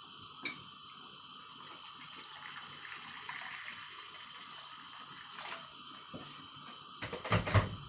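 Hot water in a cooking pot for tom yum soup, heard as a faint, steady watery hiss. A few loud knocks come near the end.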